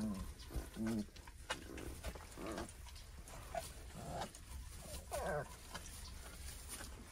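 Great Pyrenees puppies making short grunts and whimpers, with one whine that falls in pitch about five seconds in, over faint rustling in their pine-chip bedding.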